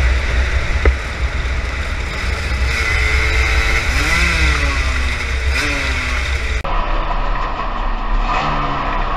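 Sportbike engine heard from an onboard camera at speed, under heavy wind rumble on the microphone. Around the middle the engine pitch drops and rises again, as with the rider rolling off and back on the throttle; the sound cuts abruptly to a similar engine-and-wind mix near the end.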